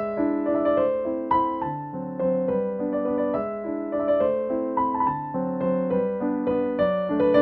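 Background piano music: a slow melody of single notes over held lower chords.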